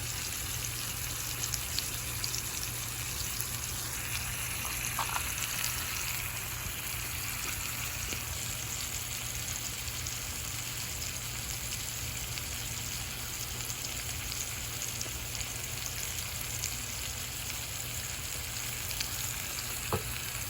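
Chicken frying in hot fat: a steady sizzle with scattered small crackles.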